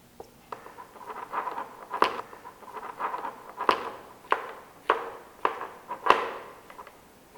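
Bicycle chain tool being worked to press a rivet pin back into a chain: a series of sharp metallic clicks and ticks, roughly one or two a second, with a faint ringing tone between them.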